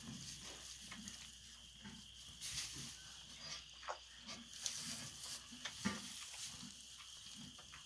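Cow giving short, soft low grunts over and over, with rustling and scattered clicks around her.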